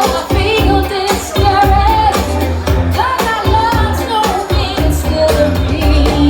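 Band music with a lead singer: a sung melody over bass and a steady drum beat.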